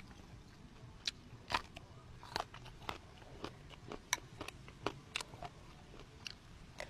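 Someone eating, with faint, irregular sharp crunching clicks about one or two a second.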